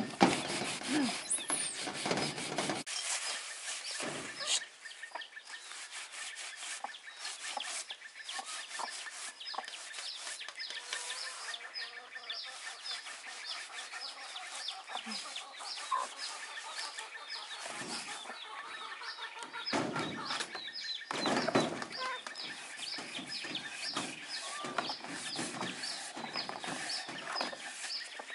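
Baby chicks peeping over and over in short high chirps. A brush scrubs a plastic basket and tub in bursts, once at the start and again about two-thirds of the way through.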